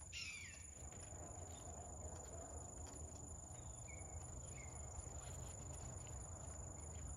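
Faint outdoor ambience: a steady high-pitched trill of crickets, with a few short, faint bird chirps.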